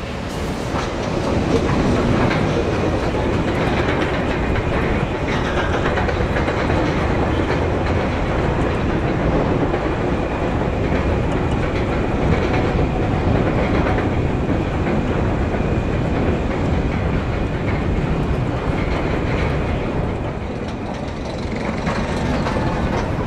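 Roller coaster chain lift clattering steadily as the train climbs the lift hill. The clatter eases briefly near the end as the train reaches the crest.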